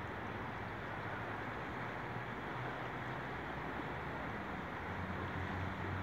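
Steady rushing of a shallow river running over stones, with a low steady hum underneath that grows louder near the end.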